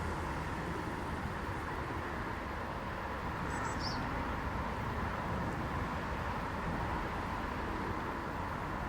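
Steady outdoor background noise with a low rumble, and one short high bird chirp about three and a half seconds in.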